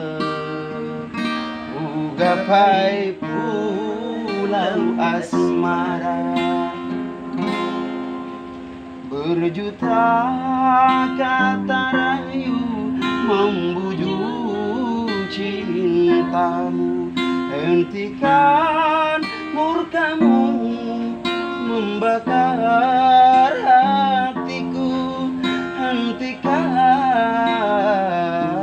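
A voice singing a melody over a strummed acoustic guitar.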